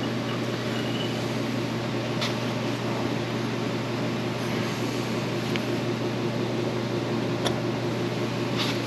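Steady low electrical or fan-type hum in a workshop, with a few faint light clicks of metal as a bearing retainer is slid over a transmission input shaft.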